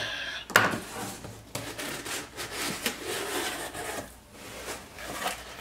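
Cardboard mailer box being cut open with an X-Acto knife and its flaps pulled open: a run of cardboard scraping, rubbing and rustling, with a sharp snap about half a second in.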